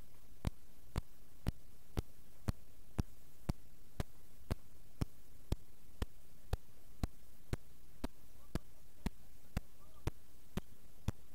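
Steady ticking: sharp clicks evenly spaced, two a second, over a faint steady hiss.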